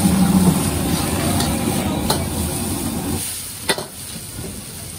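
Egg, bean sprouts and vegetables sizzling in a hot wok over a gas flame while a metal ladle stirs and tosses them. There are two sharp clanks of the ladle on the wok, about two seconds in and again near four seconds. The sizzle drops off after about three seconds.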